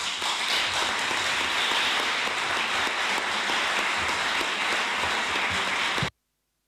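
Audience applauding steadily after a speech. The applause cuts off suddenly about six seconds in.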